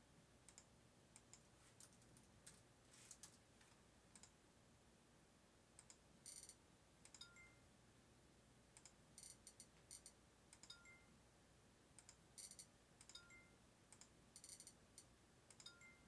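Faint clicking of small plastic buttons being pressed, in scattered single clicks and four short quick clusters, each cluster followed about a second later by a brief faint two-tone beep.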